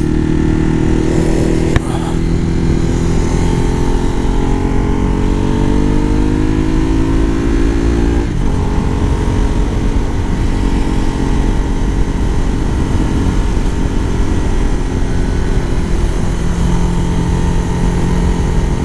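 Motorcycle engine pulling away and accelerating, its pitch climbing for about eight seconds, then a gear change about eight seconds in and steady cruising, with wind rush on the helmet microphone.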